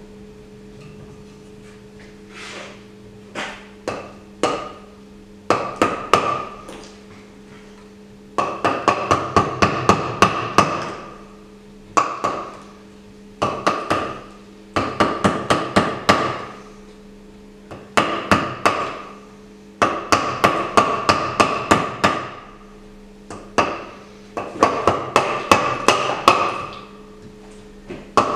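Mallet striking a chisel into a plaster waste mold, chipping it away from the cast beneath. The strikes come in quick runs of about four or five a second with short pauses between runs.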